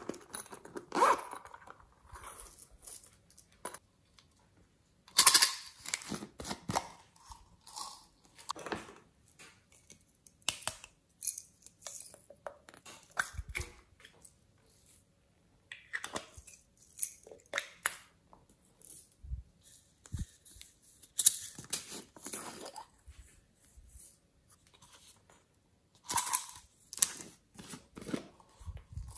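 Small plastic pots and bottles are opened, with lids clicking, and sprinkles and sequins are shaken out of them onto slime in a plastic tray. The result is a string of irregular clicks, rattles and rustles.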